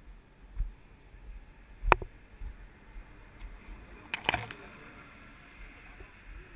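A single sharp knock about two seconds in, then a short burst of scratchy rustling and clicks a little after four seconds as leafy branches brush against a helmet-mounted camera, with low bumps between.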